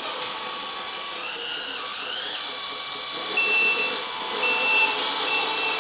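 LESU 1/16 R100E RC mining dump truck driving, its sound module playing a simulated engine over the electric drive's whine, with a rise in pitch about a second and a half in. Short high beeps repeat several times in the second half.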